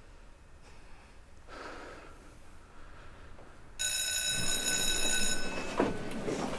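School bell ringing for about a second and a half, starting suddenly near the middle, after a few quiet seconds. The clatter and chatter of a busy school corridor rise under it and carry on.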